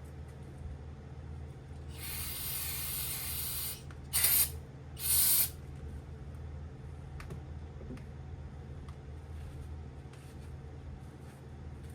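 Pressurised spray hissing in three bursts: a softer one lasting about two seconds, then two short, louder blasts a second apart.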